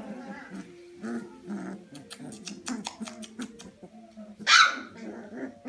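Nearly four-week-old Old English Sheepdog puppies making small, short vocal noises as they play, with a run of light clicks in the middle and one brief louder, hissy noise about four and a half seconds in.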